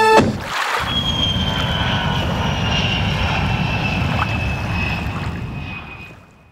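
Aircraft passing overhead: a low rumble with a thin whine that slowly falls in pitch, fading out near the end.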